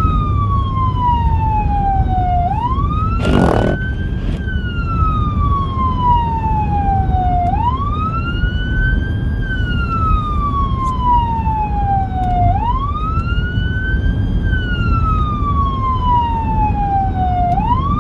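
Whelen 295SL100 electronic siren sounding its wail through dual 100-watt speakers. The tone rises over about two seconds and falls slowly over about three, repeating every five seconds over steady road noise. A brief burst of noise comes about three seconds in.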